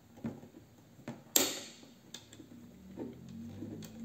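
External hammer and lock of an antique Lancaster 16-bore side-by-side hammer shotgun being worked by thumb. There are a few small metallic clicks and one sharp snap with a brief ring about a second and a half in.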